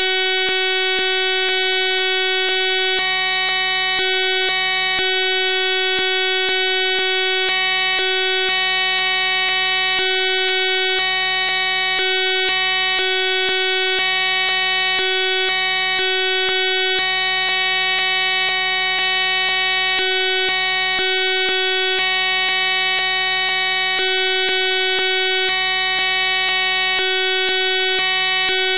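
Loud, harsh electronic buzz: many steady tones at once under a strong hiss, shifting in small steps every second or so, with no speech. It is the kind of noise left by broken or corrupted digital audio.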